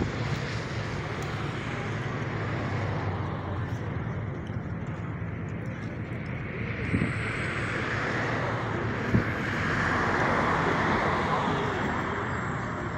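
Steady road-traffic noise, swelling louder for a few seconds as a vehicle passes about eight seconds in, with two faint knocks.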